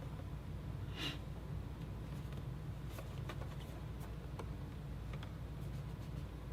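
Faint handling of a boxed Funko Pop figure: a few light clicks and taps, and a brief rustle about a second in, over a steady low hum.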